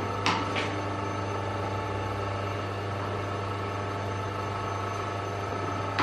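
Hydraulic crimping machine running with a steady hum, its pump motor idling. Two short clicks about half a second in as the crimping tooling is handled.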